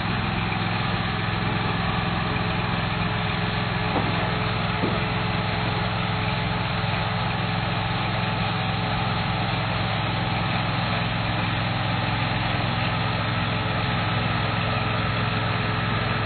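An engine running steadily at constant speed, with two light clicks about four and five seconds in.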